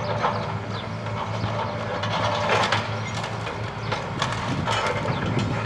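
Hitachi excavator's diesel engine running steadily while its arm works through timber demolition rubble, with irregular knocks, cracks and clatter of breaking wood.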